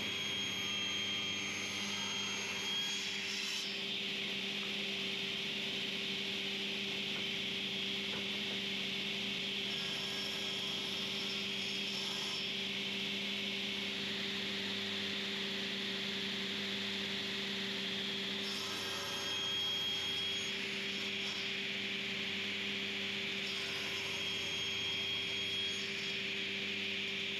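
Sliding table saw running with its dust extraction, a steady whine over a hiss, while a 45mm ash board is crosscut into square blanks. The sound changes briefly four times as the blade cuts.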